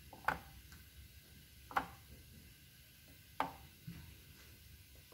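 Soft taps as raw ravioli are set down one by one on an oiled baking pan, about one every second and a half, three clear taps and a fainter fourth.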